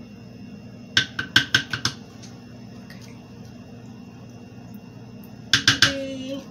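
A small metal spoon tapped against the rim of a container to knock off measured powder: a quick run of about six sharp taps about a second in, then three more near the end, the last leaving a short ring.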